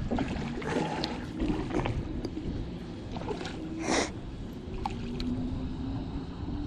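Wind rumbling on a body-worn camera's microphone, with rustling of clothing and scuffs as the wearer climbs onto a rock, and a louder scrape about four seconds in.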